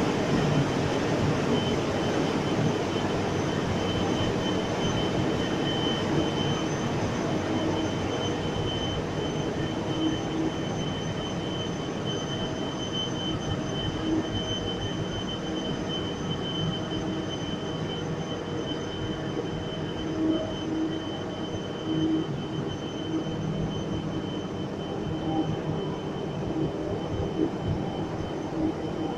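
A large container ship's main diesel engine running steadily: a dense, unchanging mechanical din with a thin steady high tone over it.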